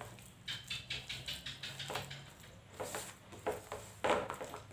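A hand squeezing and kneading a soft, sticky mash of ripe banana, semolina and rice flour on a plate. It makes irregular soft squishing pats, several a second.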